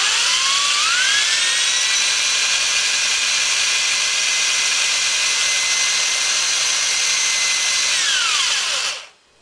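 A corded 3/8-inch electric drill spins a .223 brass case against a primer pocket reamer to ream the primer pocket out. The motor whine rises as it speeds up over the first two seconds, holds steady over a loud hiss, then winds down and stops about nine seconds in.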